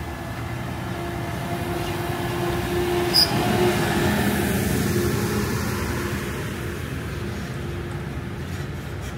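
Ride aboard a Disneyland guest tram in motion: a steady running rumble with a whine of a few held tones. A short sharp high ping comes about three seconds in.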